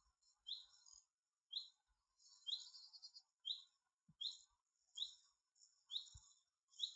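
A bird calling: short, sharp chirps repeated about once a second.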